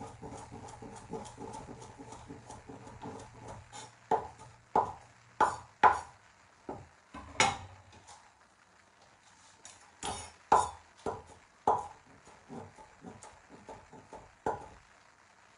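A cleaver chopping fresh coriander on a bamboo cutting board. It starts with a quick run of light chops, then slower, sharper knocks of the blade on the board, a short pause, and another run of knocks that stops shortly before the end.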